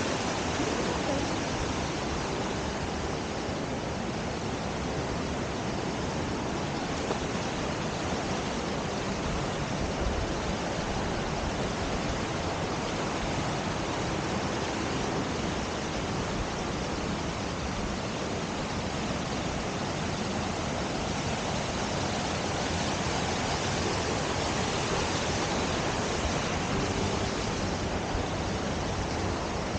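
Steady rush of a fast-flowing mountain stream, with no breaks or single events.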